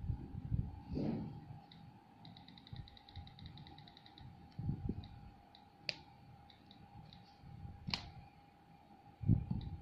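iPad on-screen keyboard clicks: a rapid, even run of ticks lasting about two seconds, then single clicks as keys are tapped one by one, two of them louder. A few dull thumps of fingertips on the glass, and a faint steady tone underneath.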